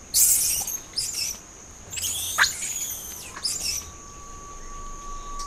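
Rhesus macaques giving shrill, wavering screams in four short bursts over the steady high buzz of crickets. A faint steady tone comes in about three and a half seconds in.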